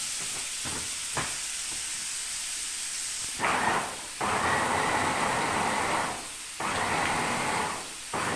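Chicken frying in oil with a steady sizzle and two light clicks; about three seconds in, an electric blender starts grinding the wet chili spice paste, running in on-off bursts of one to two seconds with short pauses between.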